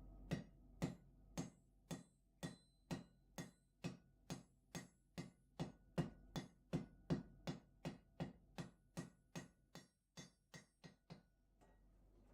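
Hand hammer blows on hot steel over an anvil, forging a chisel blank: a steady run of sharp strikes, about two a second, quickening a little midway and stopping near the end.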